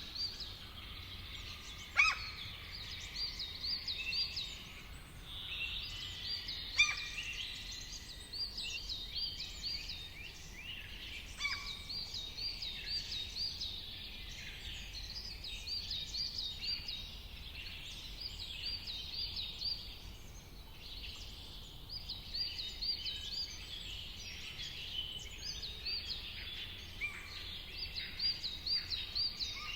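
Several songbirds calling and singing at once in a busy chorus, one repeating a quick run of short notes over and over, with two sharper, louder calls about two and seven seconds in. A faint low rumble of background noise lies under the birdsong.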